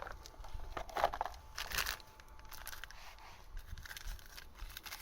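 Packaging crinkling and rustling in irregular bursts as items are handled.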